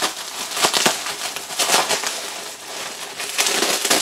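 Plastic bubble wrap crinkling and rustling as it is handled and pulled open, in several loud bursts.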